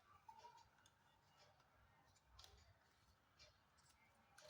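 Near silence with a few faint, scattered clicks from handling a tripod's phone holder being fitted onto its head.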